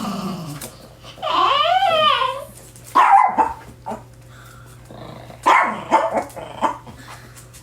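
Small dogs barking and growling: a drawn-out wavering growl-whine about a second in, one sharp bark near three seconds, then a cluster of quick barks in the last third.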